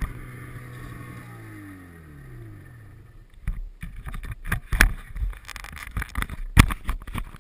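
Arctic Cat Sno Pro 500 snowmobile's two-stroke engine winding down, its pitch falling and fading over about three seconds. Then come irregular knocks and rubbing on the camera, loudest near the end, as a hand covers it.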